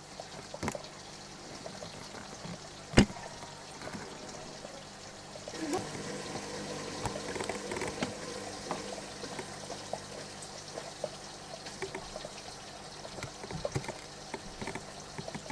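Faint trickling of water with many small scattered clicks, and one sharp click about three seconds in.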